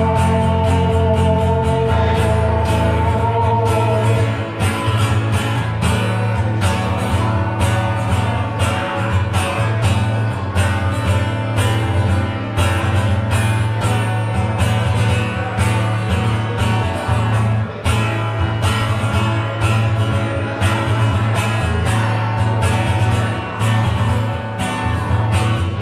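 A band playing with guitar, a heavy bass line and a steady drum beat, with some singing.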